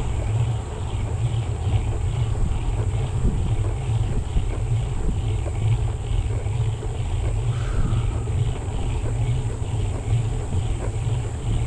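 Wind buffeting the microphone of a camera carried on a moving bicycle: a steady heavy rumble with an even hiss over it, and a faint soft swish repeating about twice a second.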